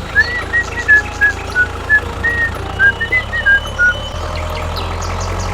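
Background music: a whistled tune of short notes over a steady beat and a low hum, the tune stopping about four seconds in.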